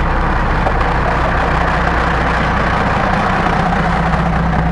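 Thai diesel railcar passing slowly close by, its engine running with a steady low hum.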